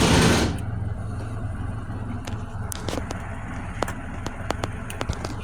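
A loud rushing hiss cuts off suddenly about half a second in. It leaves a steady low hum and a run of small sharp clicks: a multimeter's rotary selector being switched to the ohms range.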